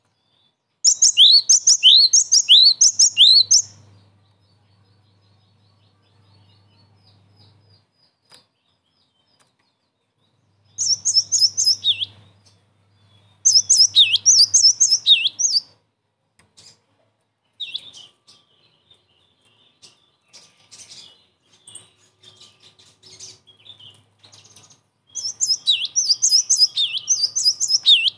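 Cinereous tit (gelatik batu) singing: four bursts of rapid, repeated high chirping notes, each two to three seconds long, with scattered single calls between the later bursts.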